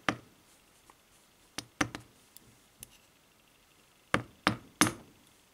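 Small sharp clicks of metal tweezers and brass lock pins against a lock cylinder and pin tray as the cylinder is taken apart: a few light clicks, then three louder ones in quick succession near the end.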